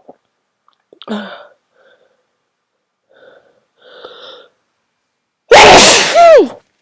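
A person's sneeze: a few short catching breaths, then one loud explosive sneeze about five and a half seconds in, ending with the voice sliding down in pitch.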